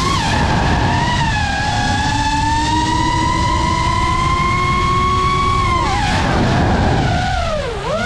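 FPV racing quadcopter's brushless motors and propellers whining, the pitch holding and slowly rising, then dropping and recovering twice near the end as the throttle is cut and punched through turns, over a rush of wind and prop wash.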